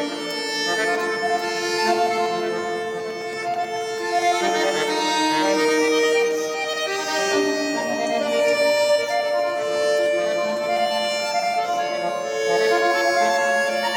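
Pigini chromatic button accordion playing solo: sustained, overlapping chords whose held notes shift slowly from one to the next as the bellows are worked.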